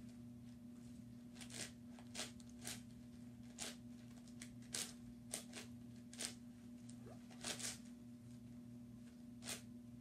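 Plastic layers of a YuXin 9x9x9 puzzle cube being turned by hand, a short scraping click with each turn, coming at an uneven pace with a pause now and then.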